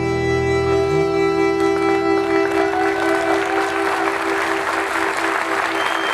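A live band holding a sustained final chord, one pulsing tone in it, the bass dropping out partway, while audience applause swells from about two seconds in until it covers the music.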